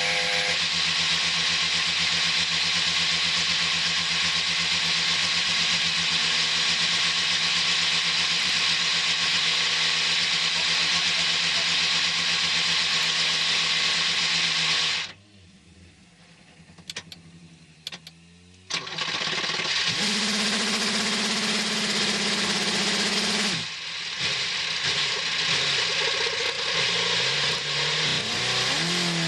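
Starter cranking the Oreca 07's Gibson V8 in long restart attempts that do not catch. About halfway through the cranking stops for a few seconds, with a few clicks, then resumes.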